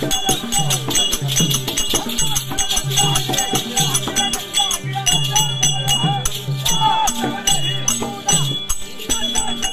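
Tamil therukoothu (street-theatre) music: fast, dense percussion over a repeating low note figure, with pitched melodic slides above.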